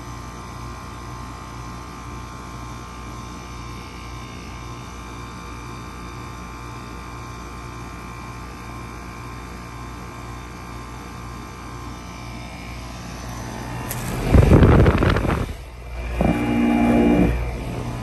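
2004 Goodman 3.5-ton packaged heat pump running steadily in cooling mode, its compressor and condenser fan giving a steady hum. About fourteen seconds in, loud rushing gusts break in as the microphone is brought over the fan's discharge and its air blows across it.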